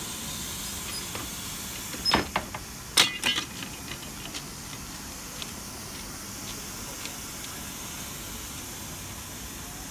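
Steam locomotive, a BR Standard Class 4 tank engine, hissing steadily. A quick run of sharp metallic clanks comes about two to three and a half seconds in.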